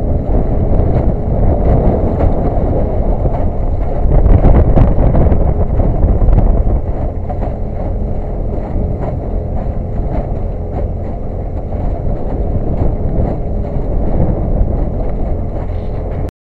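Heavy wind buffeting the microphone as a small boat runs across choppy river water, with a faint steady hum from the boat's motor underneath. It cuts off suddenly near the end.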